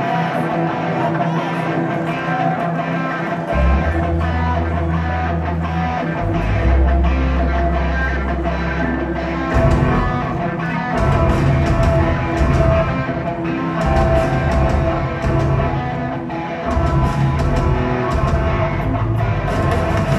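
Punk rock band playing live on electric guitar, with bass notes coming in about three and a half seconds in and the full band with drums from about ten seconds in.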